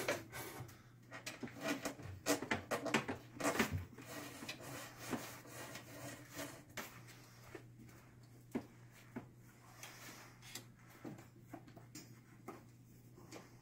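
Old telephone wire being pulled and worked loose from ceiling joists by hand: irregular rustling, scraping and light knocks and taps. These are busiest in the first few seconds, then thin out to scattered taps.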